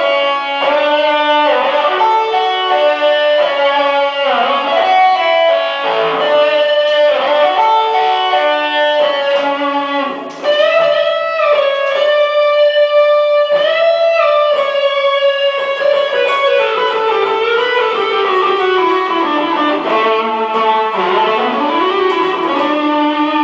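Ibanez RG350DX electric guitar played through a Fender Mustang III amp, a melodic line of picked and held notes. About ten seconds in there is a brief drop, then the line resumes with sustained notes and string bends that glide up and down towards the end.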